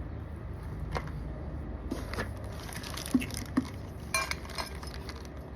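Scattered clicks, knocks and clinks of motorized bicycle kit parts being handled and unpacked, with one short ringing metallic clink about four seconds in, over a steady low hum.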